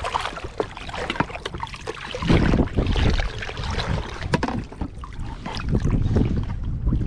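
Choppy saltwater sloshing and splashing right against a water-level camera while wading, with wind on the microphone. It swells into louder, heavier stretches about two seconds in and again toward the end, with a few small knocks.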